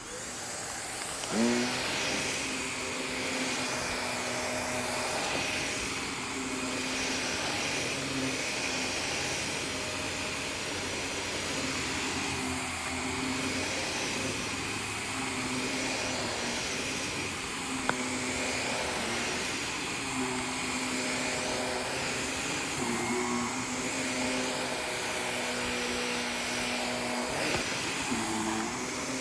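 Canister vacuum switching on and coming up to speed about a second in, then running steadily as it is pushed over a rug. Its tone dips and recovers every couple of seconds with the passes of the head.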